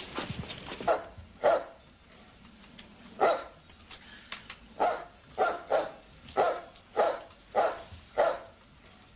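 A dog barking repeatedly, about ten sharp barks at uneven intervals, with a gap of nearly two seconds after the first two and quicker barks in the second half.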